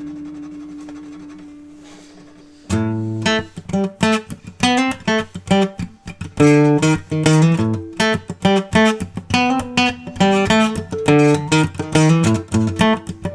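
Recording King acoustic guitar played solo: a chord rings out and slowly fades, then about three seconds in a plucked melody of single notes and chords begins.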